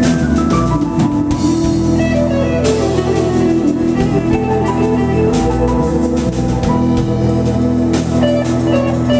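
Live rock band playing: electric guitar, bass guitar, drum kit and keyboards together at a steady level, with regular drum hits.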